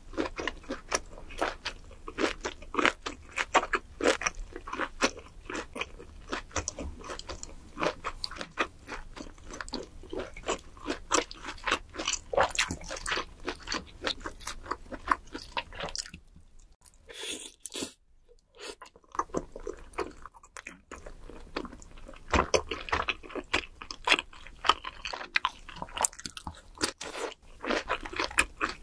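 A person chewing and crunching food close to the microphone: a dense, uneven run of wet clicks and crackles, with a quieter break about sixteen to nineteen seconds in.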